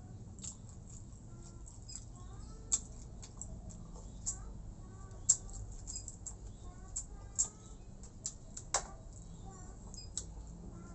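Close-miked eating sounds: irregular wet mouth smacks and chewing clicks while eating rice with chicken-feet soup, salted fish and fried tofu, with a few sharper, louder clicks.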